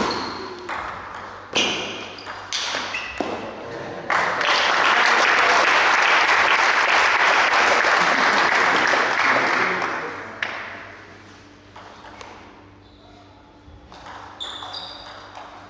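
Celluloid-type table tennis ball clicking off bats and table with short high pings during a rally. After about four seconds comes applause lasting about six seconds, the loudest part. Near the end the ball bounces with a few more pings.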